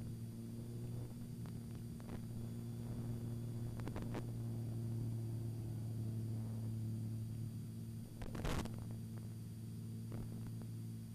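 Steady low drone of the aerobatic plane's engine heard inside the cockpit during manoeuvres. Faint clicks run through it, and a brief rush of noise comes about eight and a half seconds in.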